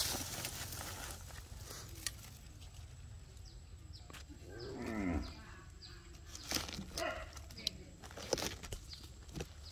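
A knife blade cutting and prying at a rotting palm trunk, giving several short sharp knocks and scrapes against the fibrous wood. About halfway through, a drawn-out animal call falls in pitch.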